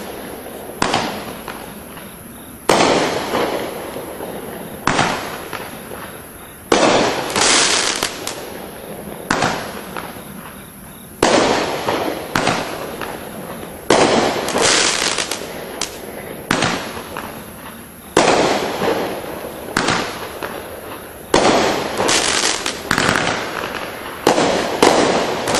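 12-shot Star Quake firework cake (FB2068) firing shot after shot, about one every two seconds. Each shot is a sharp bang followed by a fading tail of noise.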